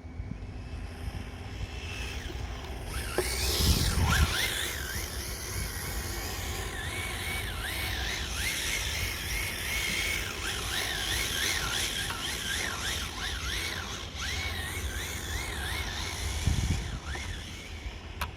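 Radio-controlled car driving, its motor whine rising and falling quickly as the throttle is blipped, over a low rumble of the tyres on the ground. It surges loudest about three to four seconds in and again near the end.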